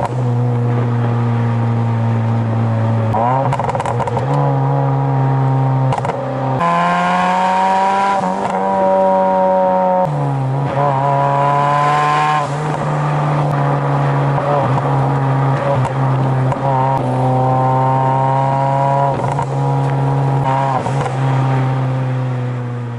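Hyundai Genesis Coupe's 2.0-litre turbocharged four-cylinder engine and aftermarket pop-and-bang exhaust running as the car is driven. Engine speed holds steady for a few seconds, then shifts to a new pitch several times, with a few short cracks from the exhaust along the way.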